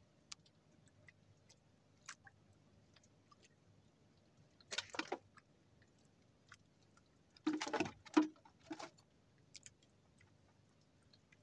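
Faint scattered clicks and a few short rustling scrapes from hands working a fishing handline and hooks in a small boat, louder about five seconds in and again around eight seconds.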